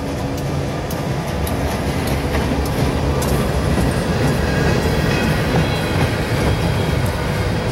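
Freight cars of a passing CSX train rolling by close up: a steady rumble of steel wheels on the rails with scattered clicks and clatter, growing a little louder.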